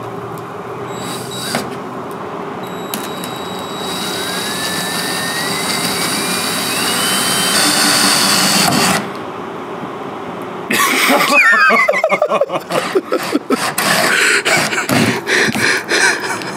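Cordless drill boring a hole through a wooden block: a steady motor whine whose pitch rises slowly as the bit works through, stopping about nine seconds in. After a short lull comes a louder stretch of irregular clattering and knocks.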